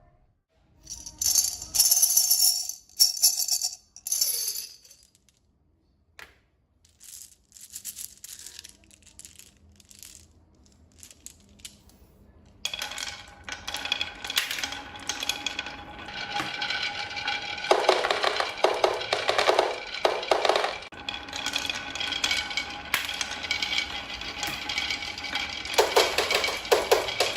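Marbles clattering and rattling down a wooden marble run: a few bright rattling bursts at first, then only scattered clicks, then from about halfway a dense, continuous clatter with ringing tones.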